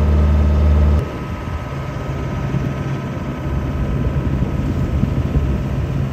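A sailboat's inboard engine running steadily under way, a low hum. About a second in, it gives way to a rough rushing noise of wind and water with the engine hum fainter beneath it.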